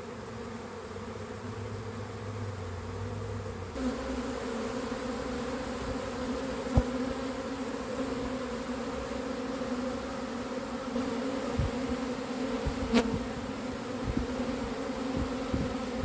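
Dense mass of honey bees buzzing at a hive entrance, a steady hum that grows louder about four seconds in, with a couple of light ticks. The colony is flying back into the hive after what the beekeeper takes for a queen's mating flight.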